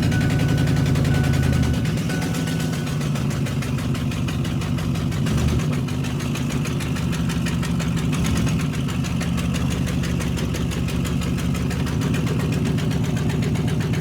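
Ford F-250 Super Duty engine idling steadily with an even pulsing beat, its idle settling a little lower about two seconds in. The exhaust manifold is cracked, so the sound carries an exhaust leak.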